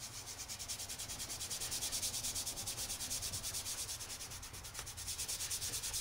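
Fingers rubbing graphite powder into drawing paper in rapid, even back-and-forth strokes of several a second, skin scrubbing across the paper surface to shade in a tone.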